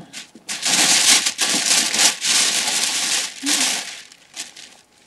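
Tissue paper rustling and crinkling as it is pulled out of a gift box, dying away near the end.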